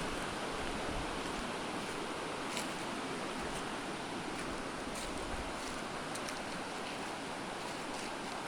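Steady rush of a waterfall's flowing water, with a few faint ticks.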